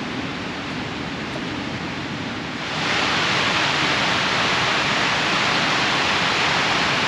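Rushing water of the River Ure's falls at Aysgarth, running high after heavy rain: a steady roar that jumps louder and brighter about two and a half seconds in.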